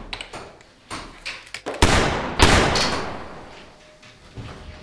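Two loud bangs from a door about half a second apart, the second fading away slowly.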